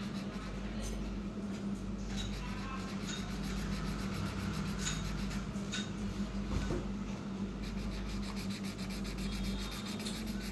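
Pen strokes on paper as a drawing is made, over a steady low hum.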